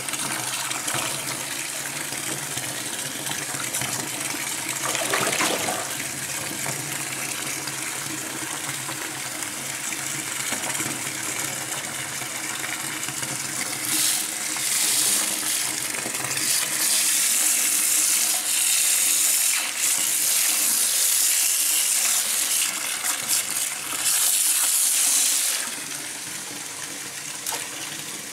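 Water pouring from a shower hose into a plastic bucket of water, a steady splashing gush. About halfway through it turns louder and hissier as a hand holds the watch right under the stream, then eases off again near the end.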